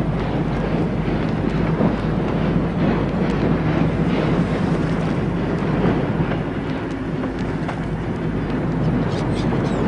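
Dubbed-in harbour ambience: a steady low engine rumble and hum under a wash of wind-like noise, as from vessels running in a port.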